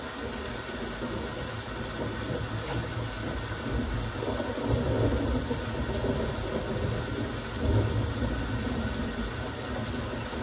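Steady rainfall, an even hiss of drops. Under it a low rumble swells twice, once around the middle and again a few seconds later.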